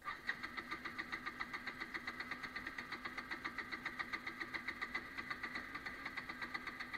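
Bajaj Pulsar NS200's electric starter cranking the engine in a steady rhythm of about seven pulses a second without it firing up, the sign of the bike's hard-starting problem.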